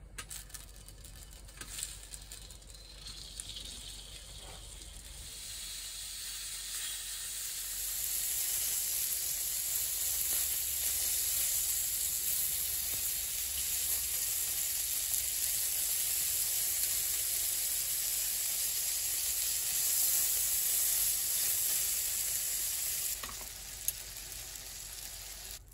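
Sausages sizzling in a stainless steel sierra cup lid used as a frying pan. The sizzle builds over the first several seconds, holds steady, then drops off sharply near the end, followed by a single click.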